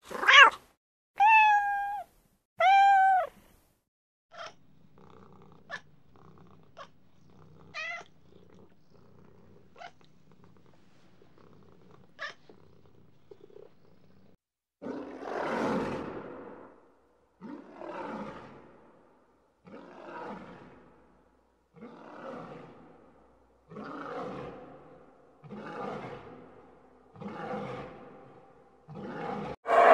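Domestic cat meowing three times, loud and clear, then a few fainter short mews. From about halfway on, a regular series of breathy animal grunts comes roughly every second and a half, the first one longest.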